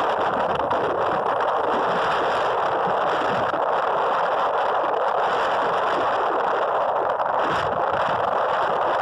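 Steady rushing wind noise on the microphone from moving along a road, with no engine note standing out.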